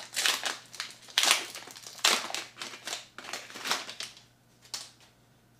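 Foil wrapper of a Pokémon booster pack crinkling as it is handled and opened, in a string of short, sharp crackles that stop about four seconds in.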